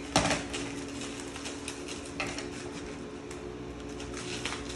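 Packing material being handled while a large wrapped print is unboxed: plastic wrap crinkling and cardboard rustling, with a sharp crackle just after the start and scattered small clicks and rustles after it. A faint steady hum sits underneath.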